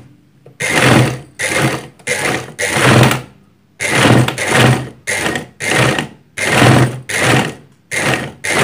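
Portable Janome sewing machine driven through a rubber belt by its add-on electric motor, run in about a dozen short bursts. Each burst starts and stops quickly and the machine runs fast. The machine responds quickly to each press, the sign that the motor and belt are fitted at the right tension.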